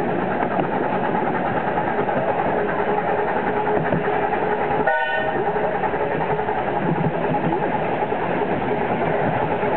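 Miniature railway ride heard from an open passenger car: a steady rumble of the wheels on the track with the small locomotive's engine running. A short high tone sounds about halfway through.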